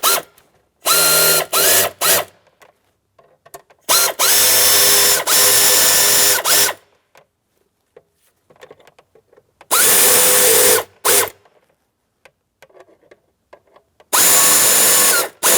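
Cordless drill-driver running in four spells to snug up small Phillips mounting screws, the whine rising in pitch as each run starts. The first spell is a few short pulses, the second the longest at almost three seconds.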